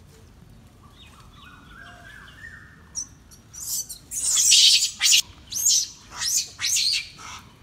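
Animal calls: a faint series of rising whistle-like notes, then from about three seconds in a run of loud, shrill, high-pitched calls in quick succession, the longest lasting nearly a second.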